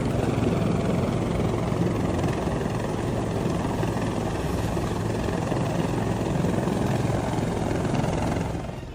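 Helicopter running steadily, its rotor and engine making a constant dense noise with a low hum underneath, fading out near the end.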